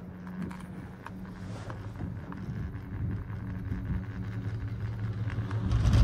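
Cable-car gondola running along its line: a steady low hum with scattered light clicks and creaks, swelling louder near the end.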